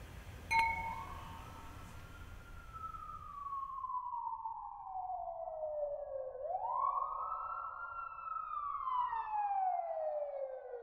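Two wine glasses clink once, about half a second in, with a short bright ring. Then a siren-like tone swoops up and slides slowly down, swoops up again about six seconds later and slides down once more, as the low room noise behind it stops.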